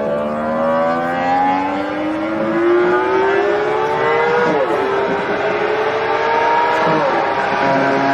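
Motorcycle engine accelerating hard through the gears. The revs climb steadily, drop sharply at an upshift about four and a half seconds in, and drop again at another upshift about seven seconds in.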